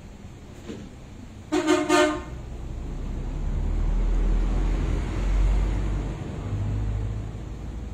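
A vehicle horn gives two short toots about a second and a half in. A low vehicle engine rumble then swells and fades as it passes by.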